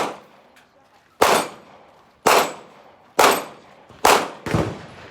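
Five gunshots about a second apart, each sharp crack followed by a short fading tail; the last two come close together.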